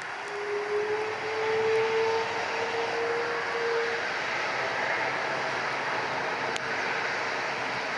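Airbus A330-300's twin Rolls-Royce Trent 700 turbofan engines spooling up on the runway for takeoff. A slightly rising whine sits over a broad engine rush that grows louder about a second in; the whine fades out around four seconds while the rush holds steady.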